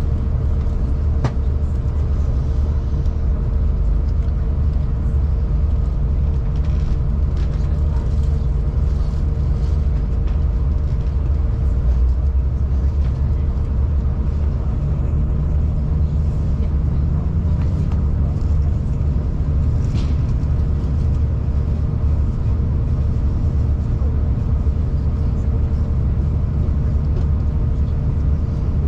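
V/Line passenger train running steadily, a continuous low rumble of wheels on rail with a steady hum and a couple of faint clicks.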